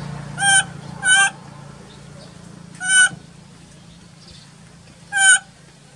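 Four short, high-pitched animal calls with a wavering pitch, spread unevenly: two close together in the first second or so, one about three seconds in and one near the end.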